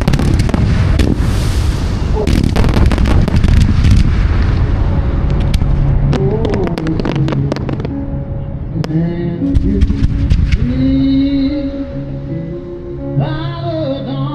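Fireworks going off in a dense run of crackles and bangs. About halfway through, music comes up over them, with a few more sharp bangs still sounding through it.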